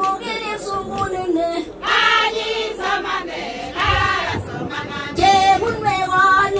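A group of women singing together in chorus, a traditional song with several voices holding and bending long notes, swelling louder a few times. A dull thump sounds about four seconds in.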